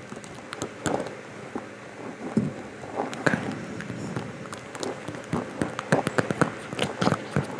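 Close-miked inaudible whispering, soft and breathy, broken by many small sharp clicks.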